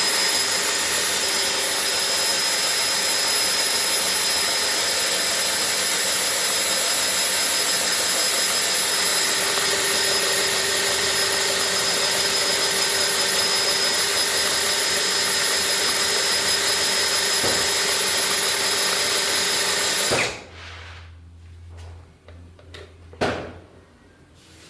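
Electric drill running at a steady speed with a constant whine, driving the blade of a converted blender jar; it is switched off and stops abruptly about 20 seconds in. A short knock follows a few seconds later.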